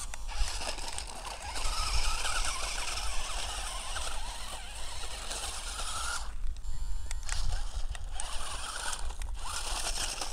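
Toy RC rock crawler's small electric motor whirring as its tyres scrabble and crunch over loose dirt and stones while it climbs a mound. The noise drops away briefly about six seconds in.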